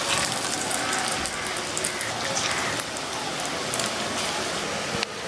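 Potato sticks deep-frying in hot oil in a wok on a low flame: a steady bubbling sizzle with frequent sharp crackles.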